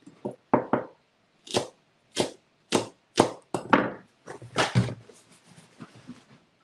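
Cutco kitchen knife chopping green onions on an end-grain wooden cutting board: a string of sharp knocks of the blade striking the wood, about one every half second, turning to fainter, quicker taps near the end.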